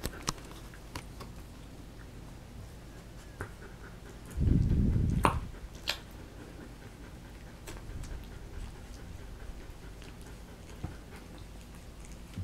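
Three-week-old puppies suckling at their mother, with faint scattered smacking clicks. A low, muffled huff lasting about a second comes a little over four seconds in.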